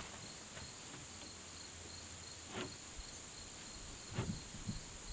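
Crickets chirring: a steady high buzz with a regular repeating chirp under it. A few faint knocks about halfway through and again near the end.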